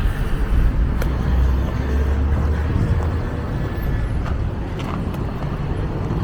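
Steady low rumble of outdoor background noise, heaviest in the first half, with a few faint clicks.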